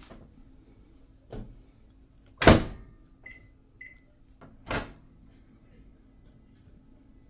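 Microwave oven being worked: a light knock, then a loud bang like its door shutting, two short keypad beeps, and another knock.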